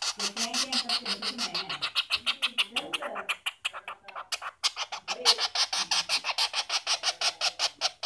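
Young woodpecker begging for food: a fast, steady string of high chirps, about nine a second, fading a little about three and a half seconds in before picking up again.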